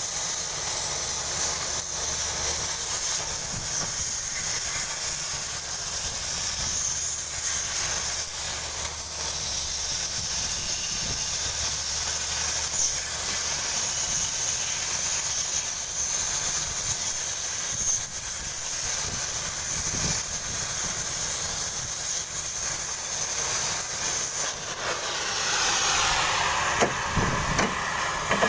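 Oxy-fuel cutting torch hissing steadily as its oxygen jet cuts through 20 mm steel plate. The sound grows louder over the last few seconds.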